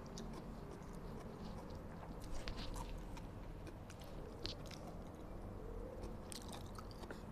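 Close-miked chewing of a mouthful of spicy instant noodles: quiet, wet mouth sounds with many small clicks and smacks scattered throughout.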